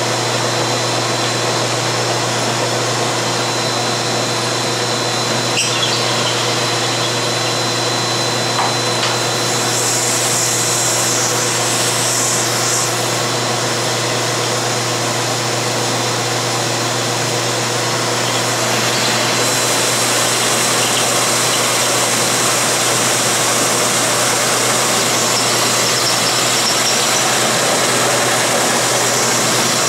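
Drill press running with a countersink cutting into steel angle iron, while a shop vacuum with a brush nozzle runs steadily beside the cutter, sucking up the metal chips. The hiss turns brighter and harsher about ten seconds in for a few seconds, and again from about twenty seconds on.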